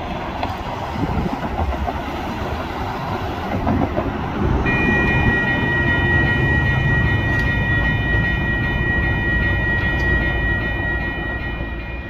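Railroad grade-crossing warning bell starts ringing about four and a half seconds in, a steady high ringing that holds on, over the low rumble of an approaching train.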